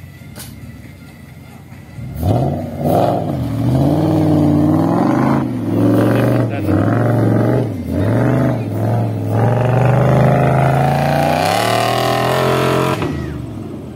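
Off-road 4x4 truck engine revving hard, its pitch climbing and dipping again and again as the truck is driven through the course. It starts about two seconds in and dies away near the end.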